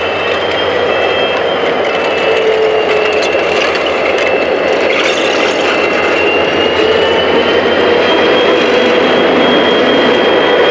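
Diesel-electric locomotives, SSR 49 class 4904 among them, rolling slowly past at close range with their engines running. A steady high whine holds through the whole pass, and the sound grows a little louder toward the end.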